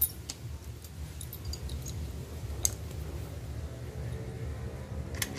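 A few sharp clicks of small metal tools and engine parts being handled, over a steady low hum; background music fades in near the end.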